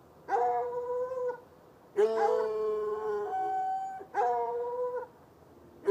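Hounds baying in long, drawn-out howls: three held calls about a second apart, the middle one longer and ending on a higher note.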